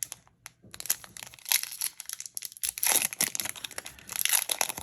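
Irregular crinkling and rustling of a foil trading-card booster pack being handled, loudest about a second and a half in and again through the second half.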